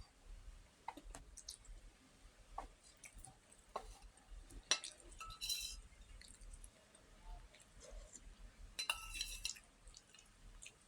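Eating sounds: chewing with scattered light clicks and clinks of dishes and utensils, louder for a moment about five seconds in and again about nine seconds in.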